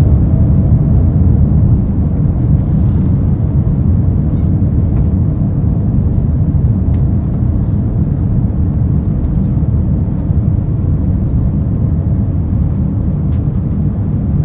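Steady low rumble of a moving vehicle heard from inside, with a few faint ticks now and then.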